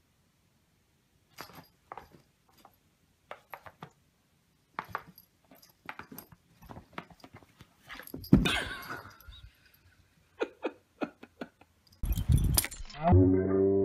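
A scatter of light, irregular taps and clicks as a cat paws at a game on a tablet screen, with one louder knock about eight seconds in. Near the end a sudden louder noise, then music begins.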